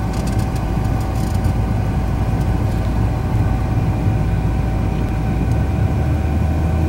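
Car cabin noise while driving: steady engine and tyre rumble with a thin, steady higher tone over it. The low rumble shifts about five and a half seconds in.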